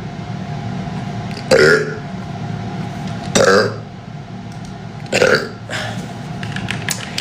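A man burps loudly three times, each burp about a third of a second long, spaced roughly two seconds apart.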